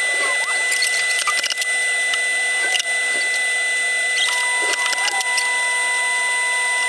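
Steady high-pitched machine whine from workshop equipment, made of several held pitches, with scattered light clicks and taps from oak strips being handled on the bench. A further steady tone joins about four seconds in.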